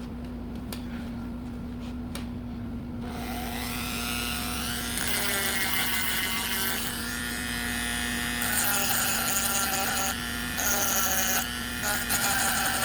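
Small electric power tool working wood: a steady hum, then from about three seconds in a whine that rises, shifts in pitch and grows louder as the tool is loaded.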